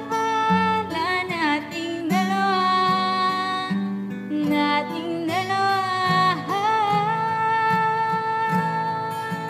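A woman singing with acoustic guitar accompaniment, holding one long note through the second half.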